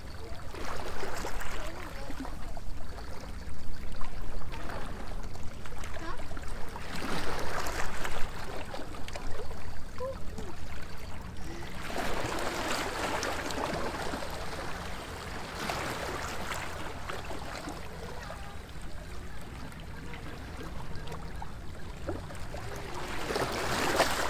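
Small sea waves washing against a stone seawall, the rushing water swelling and fading in surges every few seconds.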